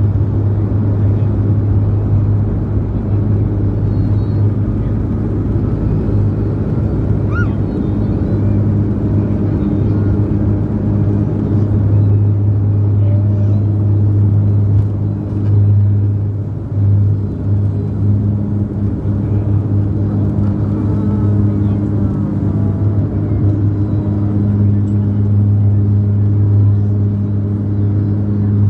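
Pratt & Whitney PW150A turboprops and six-bladed propellers of a Dash 8 Q400 at takeoff power, heard inside the cabin. A steady, loud low propeller drone over rumble as the aircraft rolls down the runway and lifts off.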